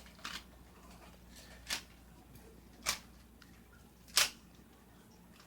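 Sharp plastic clicks of a Rubik's Cube's layers being turned, four single clacks spaced a little over a second apart, the fourth the loudest.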